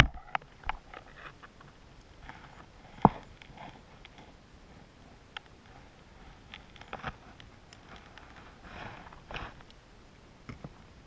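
Scattered light knocks and rustles of gloved hands, fishing gear and a caught fish against a plastic sit-on-top kayak, with one sharper knock about three seconds in.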